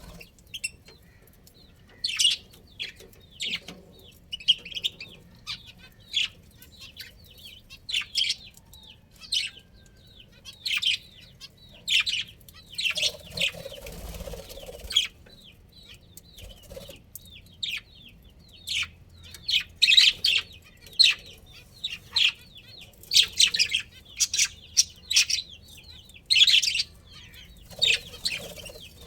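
Budgerigars chirping in frequent short, high-pitched bursts.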